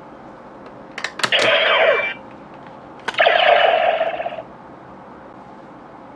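DX Neo Decadriver toy belt clicking and then playing a short electronic sound effect through its small speaker, twice. A few clicks come about a second in, followed by about a second of electronic tones with falling notes; a click about three seconds in is followed by another second-long electronic effect.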